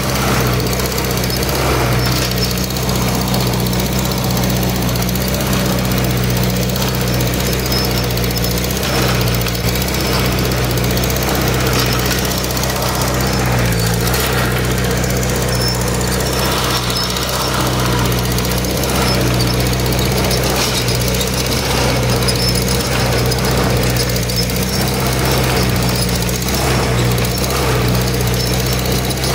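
Farm tractor engine running steadily under load while pulling a plow, heard from the driver's seat. The engine note dips briefly about halfway through.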